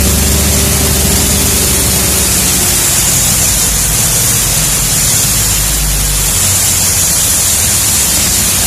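M923A0 5-ton military truck's diesel engine running under way, its low note shifting a couple of times, with a loud steady hiss over it.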